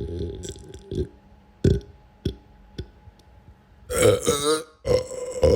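A person belching: a burp trails off at the start, a few short pops follow, then two loud burps about four and five seconds in, the first with a wavering pitch.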